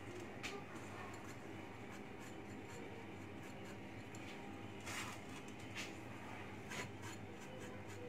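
Four short, dry, scratchy rustles of crisp kunafa vermicelli strands being pinched and pressed onto dessert cups by hand, over a steady low hum.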